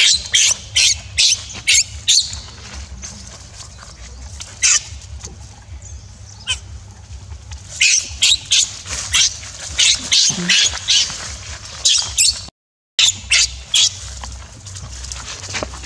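Baby monkey screaming in distress while its mother grips and handles it roughly: many short, shrill squeals that come in quick runs.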